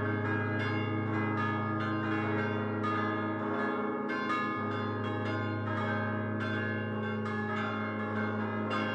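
Full peal of five church bells cast by Prospero Barigozzi in 1928 (C4, A-flat3, E-flat3, C3, A-flat2), hung fixed and rung by hand-swinging the clappers against them. It is a quick, continuous run of overlapping strikes, a few a second, over a steady low hum.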